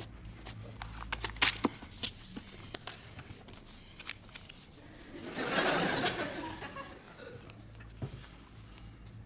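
Studio audience laughing briefly about halfway through, after a run of small scattered clicks and knocks.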